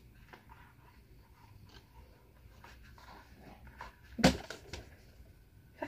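Handling of a shoe and its cardboard shoebox: faint rustles and light taps. About four seconds in there is one short, sharp clatter, followed by a few quieter ticks.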